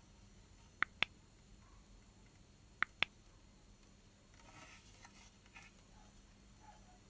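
Handling of a hard ABS plastic RC truck cab body: two pairs of sharp plastic clicks, the pairs about two seconds apart, then a soft rustle about four and a half seconds in.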